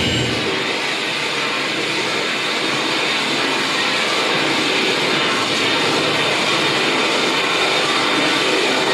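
Harsh noise music played live: a dense, steady wall of electronic noise, hissing and grainy, with almost no bass. The low pulsing rumble cuts out right at the start, leaving only the upper noise.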